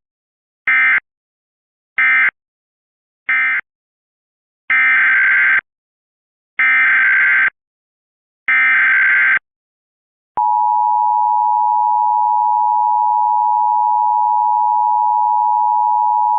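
Emergency Alert System digital data bursts: three short end-of-message bursts close the previous alert, then three longer SAME header bursts open the next one. About ten seconds in, the steady EAS attention tone starts and holds.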